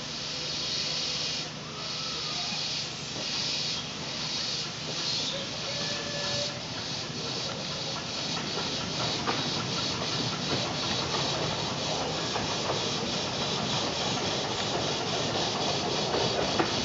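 Miniature steam locomotive Excalibur chuffing as it hauls a passenger train, its exhaust beats quickening from about one a second to several a second as it picks up speed.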